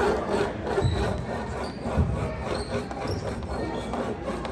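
A basketball bouncing on a gym court, with a steady din of voices and short high squeaks from the play.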